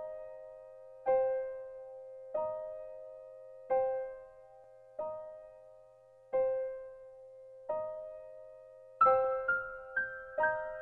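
Slow solo piano music: a chord struck about every second and a half, each left to ring out and fade, then quicker, higher notes come in about nine seconds in.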